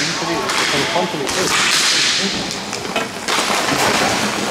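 Hockey game play: long hissing scrapes of skates cutting across the playing surface, with faint knocks and distant players' voices underneath.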